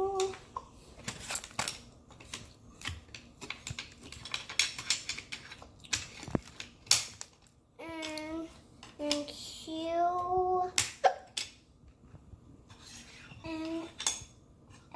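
A string of sharp, irregular clicks and taps over the first several seconds, then a young child's voice in a few short, drawn-out sung syllables.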